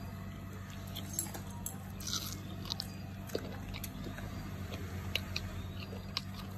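Golden retriever chewing pieces of raw green mango: irregular short crunches and clicks of its teeth on the firm fruit.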